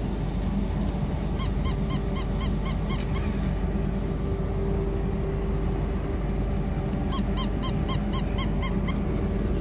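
Battery-operated walking plush toy dog yapping electronically: two runs of about eight quick, high-pitched yips, one starting about a second and a half in and one near the end, over a steady mechanical hum.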